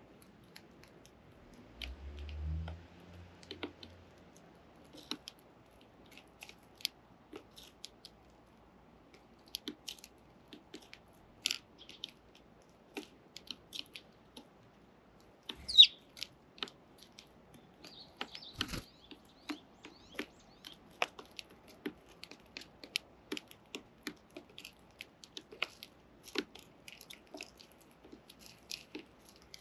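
Sparrows pecking and cracking seed: many light, irregular taps and clicks. There is a short low rumble about two seconds in and one sharper, louder click about halfway through.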